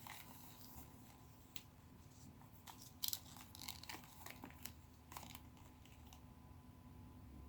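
Faint handling noises from a knife in its leather sheath: scattered soft rustles and small clicks, with one sharper click about three seconds in.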